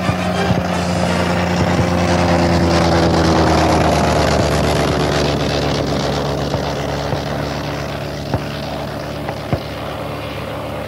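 Propeller biplane engine droning in flight, swelling to its loudest a few seconds in and then slowly fading as the plane passes.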